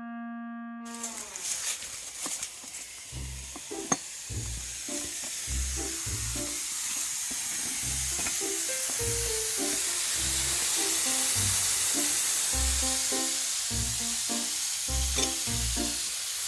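Background music with a steady beat over a steady hiss of water spraying out of a leaking water pipe.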